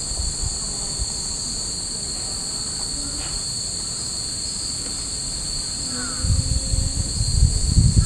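A chorus of cicadas shrilling steadily in the trees. A low, uneven rumbling noise joins it about six seconds in.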